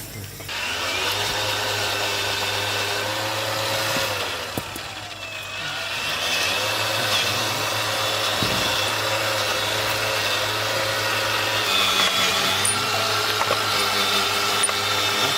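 An electric power tool running steadily. Its pitch briefly dips and comes back up about five seconds in, as if it takes a load.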